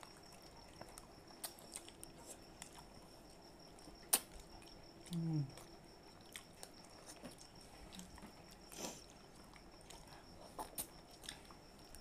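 Quiet eating sounds of ripe mango being bitten and sucked off the skin by hand: scattered wet lip smacks and small clicks, with a short falling "mm"-like voice sound about five seconds in. A faint steady high whine sits underneath.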